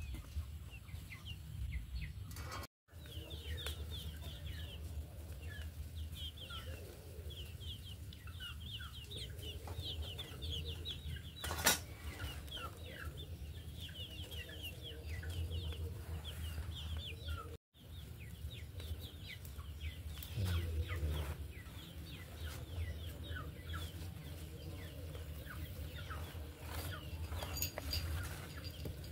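Chickens clucking and peeping in a long run of short, high, falling chirps over a low steady rumble, with a single sharp knock about halfway through.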